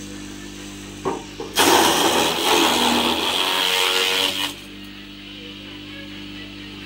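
Small electric chaff cutter running with a steady hum. About a second and a half in, green fodder stalks are fed in and the blades chop them loudly for about three seconds, then it drops back to the steady running hum.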